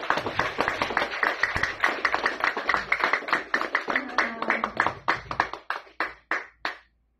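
Small audience applauding, the claps thinning to a few scattered ones and stopping shortly before the end.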